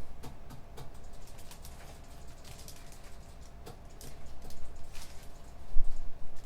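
Scattered, irregular clicks of computer keyboard keys and mouse buttons over a faint steady hum of room equipment, with heavier low knocks in the last couple of seconds.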